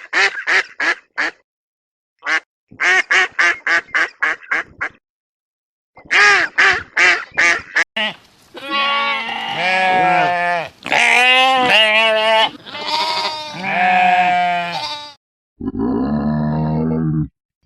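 Farm animal calls: three runs of short, rapid quack-like calls, then several long, wavering bleats, and a lower, deeper call starting near the end.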